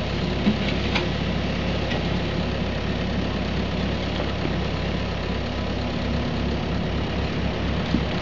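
Diesel engines of a Kubota mini excavator and a site dumper running steadily while the excavator digs fill and swings its bucket, with a couple of short knocks about a second in.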